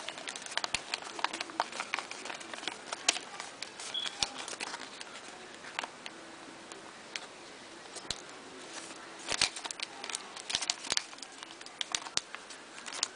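Origami paper being handled and creased by hand into inside reverse folds: scattered crinkles and crackles of the sheet, with a denser flurry about two-thirds of the way through.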